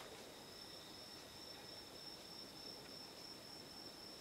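Faint, steady high-pitched trilling of crickets, continuous and unchanging, over low background hiss.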